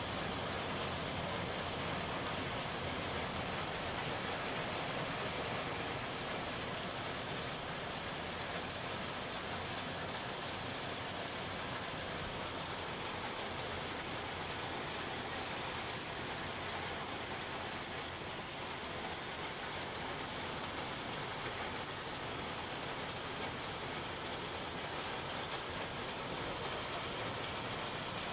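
Heavy rain pouring steadily onto gravel and puddled ground, a dense, even hiss.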